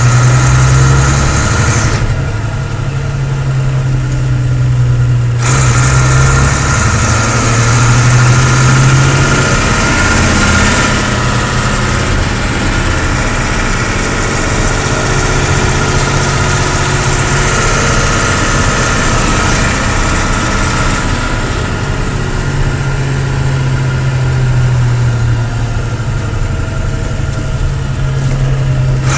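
10-ton diesel truck engine running steadily at around idle, loud and continuous, its upper sound dropping away for a few seconds about two seconds in before coming back.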